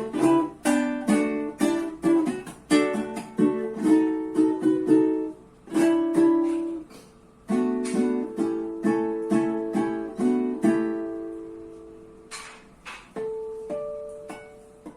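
Venezuelan cuatro played solo, a quick run of plucked notes and strummed chords. About eleven seconds in it thins out to a few last notes, and the final one rings and fades.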